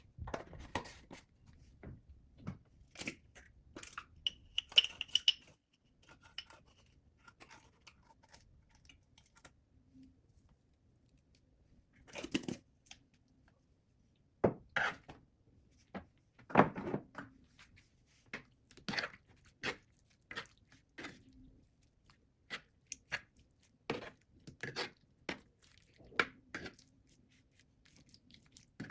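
Food-preparation handling sounds: scattered, irregular clicks, knocks and rustles of kitchenware and ingredients being handled, some louder knocks around twelve, fifteen and seventeen seconds in.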